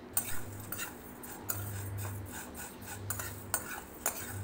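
A spatula stirs and scrapes dry vermicelli around a nonstick frying pan as the noodles are dry-roasted toward light golden, giving scattered clicks and scrapes. A low hum comes and goes underneath.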